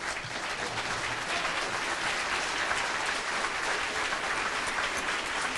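An audience applauding after a speech: dense clapping that builds over the first second, then holds steady.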